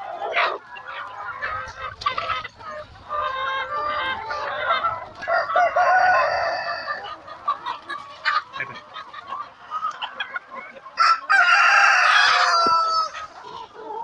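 A flock of Kuroiller chickens clucking and calling as they feed, with a rooster crowing once, the loudest sound, near the end.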